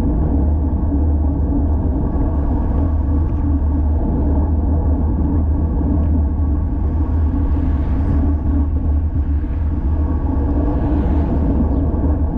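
Steady wind rumble on a GoPro Hero 5 Session's microphone while riding a road bike, with a faint hiss swelling briefly twice.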